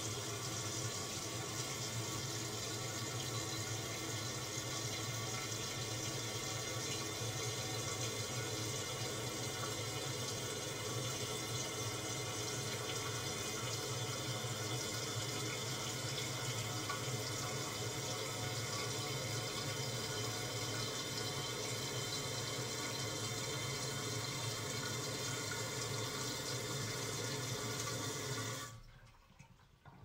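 Toilet tank refilling after a flush: a steady hiss of water running through the fill valve, with a faint whistle in it, cutting off suddenly near the end as the tank fills.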